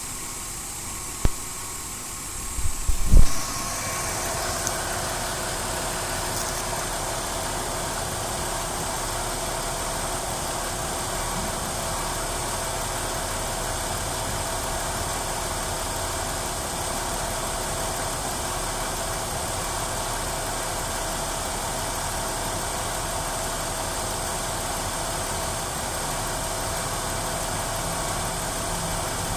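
Ford Duratec 3.0 DOHC V6 idling with a misfire, the kind that is worse with the air conditioning on max. A few knocks in the first three seconds, then the engine noise steps up and runs steadily.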